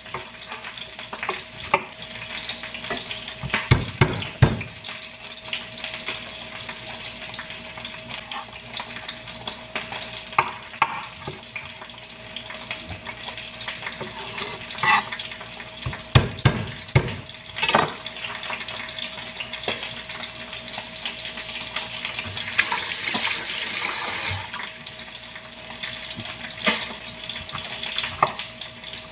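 Kitchen knife chopping on a wooden cutting board: irregular sharp knocks of the blade on the wood, with heavier bursts of quick chops about four seconds in and again around sixteen to eighteen seconds. A steady hiss and a faint hum run underneath, and the hiss swells briefly about twenty-three seconds in.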